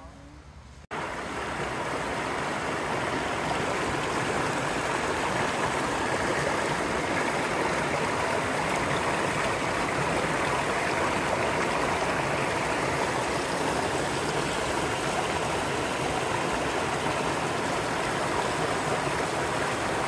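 Shallow mountain stream running over rocks: a steady rush of water that starts abruptly about a second in and holds even.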